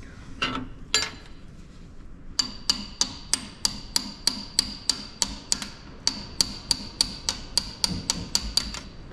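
Hammer tapping on a John Deere backhoe's fuel injection pump cover to break a stuck gasket loose: a couple of knocks, then a steady run of light metallic strikes, about three a second, each with a short ring.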